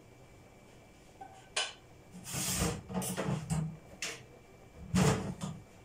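Kitchenware clattering off-camera: a few sharp knocks and clinks, a longer stretch of clatter about two seconds in, and a louder knock about five seconds in.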